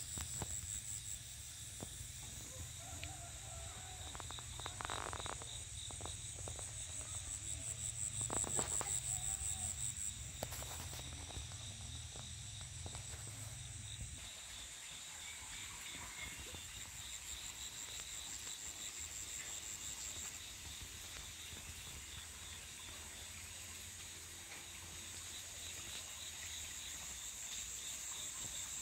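A chorus of insects trilling continuously: a fast, even, high-pitched pulsing. A couple of brief rustles about five and eight seconds in.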